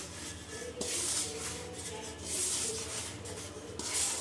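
Hands rubbing and pressing crumbly wheat-flour dough (atta mixed with ghee and a little water) in a bowl while kneading it, in about three swelling rubbing strokes.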